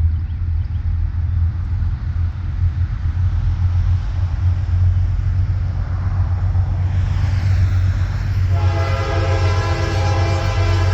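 Diesel freight locomotive approaching with a steady low engine rumble; about eight and a half seconds in its air horn starts sounding a steady multi-note chord.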